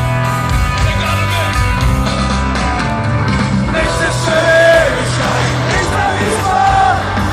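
Live rock concert sound: the band playing at full volume, with a voice singing long held notes in the second half.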